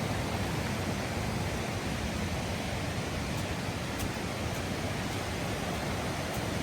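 Steady rush of a waterfall: an even roar of falling water.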